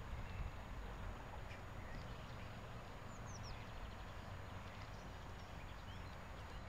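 Steady outdoor background noise, a low rumble and hiss, with a few faint high bird chirps about three seconds in.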